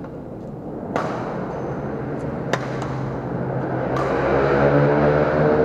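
Badminton rackets hitting a shuttlecock in a rally: three sharp, echoing smacks about a second and a half apart. Under them is a low droning hum that grows louder in the second half.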